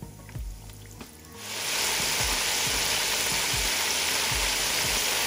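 Flour-coated chicken wings deep-frying in hot oil in an electric deep fryer. The sizzle rises sharply about a second and a half in to a loud, steady hiss, with background music with a beat underneath.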